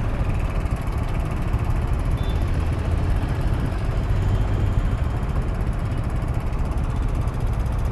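Riding noise on a modified Hero Splendor Plus motorcycle: steady wind rush on the microphone with the engine running underneath, heavy in the low end and without breaks.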